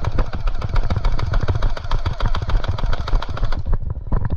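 Airsoft guns firing in rapid, continuous full-auto volleys, a dense stream of sharp clicks that thins out about three and a half seconds in.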